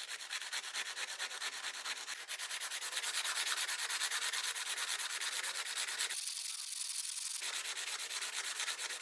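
Coarse sandpaper rubbed back and forth over a piece of quartzite in quick, even strokes, several a second. A little past six seconds in, the scratch turns thinner and higher for about a second, then goes back to its fuller sound.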